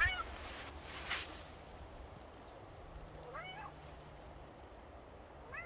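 A Maine Coon cat giving three short meows, each rising then falling in pitch: one at the start, one about three seconds in, one near the end. A brief scratchy noise comes about a second in.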